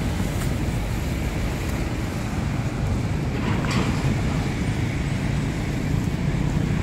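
Steady low outdoor rumble with no speech, with a brief faint higher sound about three and a half seconds in.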